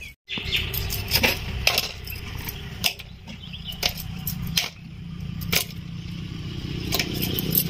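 Scattered sharp clicks and light clinks at irregular times over a steady low hum.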